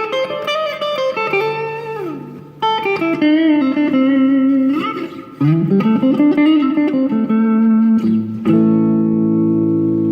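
Stratocaster-copy electric guitar played as a run of single notes with several string bends, ending on a note that rings out and slowly fades.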